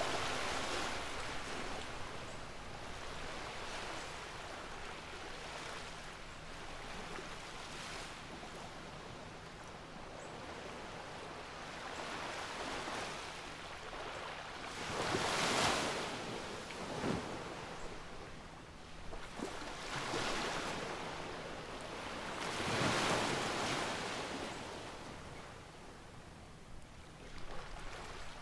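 Surf washing on a shore: a steady rush of water with two louder surges, about halfway through and again some seven seconds later.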